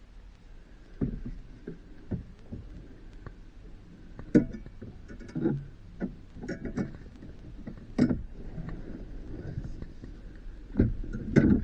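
Irregular knocks, clunks and clatters of hands and tools working on plastic dash parts and wiring inside the truck's dashboard, the loudest knocks about four seconds in, about eight seconds in and near the end.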